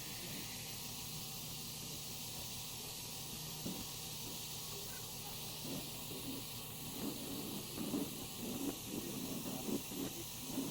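A steady hiss, with faint, irregular low knocks or muffled sounds coming in from about halfway through and growing more frequent.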